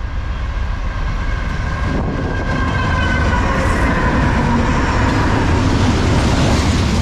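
Norfolk Southern diesel locomotives pulling a double-stack intermodal freight train approach and pass close by, the engine and wheel-on-rail rumble growing steadily louder. A tone in the middle of the sound drops in pitch as the lead locomotive goes by.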